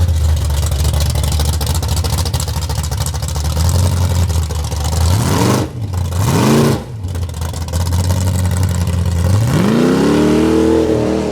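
Car engine idling with a deep, steady drone, revved twice in quick succession, then revved up again and held near the end.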